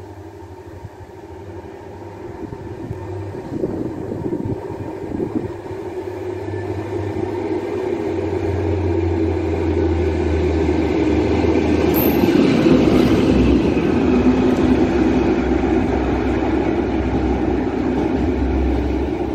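Class 73 electro-diesel locomotive running light engine, its running sound growing steadily louder as it approaches and is loudest in the second half. A brief high squeal about two-thirds of the way in.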